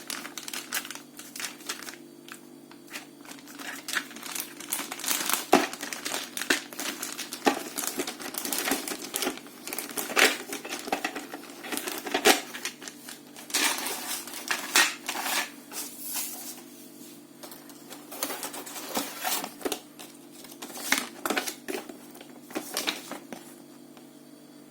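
Packaging crinkling and small plastic pieces clicking as a toy mosaic set is unpacked by hand, in irregular handling bursts that stop shortly before the end.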